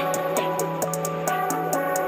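Background music with a steady quick beat of high ticks over held notes.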